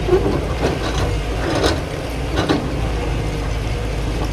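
Excavator's diesel engine running steadily, with four sharp metallic knocks in the first two and a half seconds.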